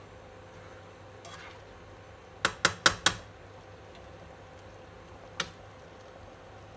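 Metal spoon knocked four times in quick succession against the rim of a nonstick frying pan, with a short ringing after each, then one lighter tap a couple of seconds later.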